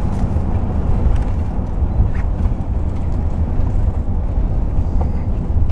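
Steady low rumble of a car driving, road and engine noise heard from inside the vehicle, mixed with a rush of wind.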